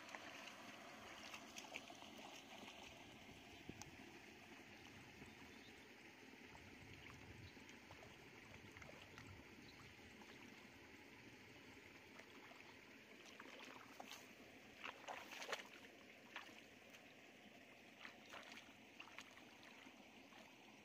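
Faint sloshing and splashing of hands working through shallow muddy paddy water over a low steady hiss, with a cluster of sharper splashes about two-thirds of the way through and a few more near the end.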